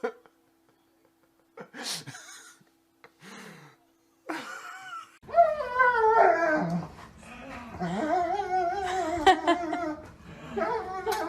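A dog vocalizing: a few short sounds at first, then, from about halfway, a long run of wavering, drawn-out whining cries that rise and fall in pitch.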